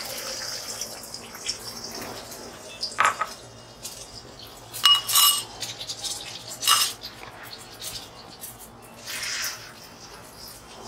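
Beaten eggs sizzling and bubbling in hot oil in a steel kadai, a steady frying hiss. A few sharp metallic clinks against the pan cut through it, about three, five and seven seconds in, the one at five seconds ringing briefly.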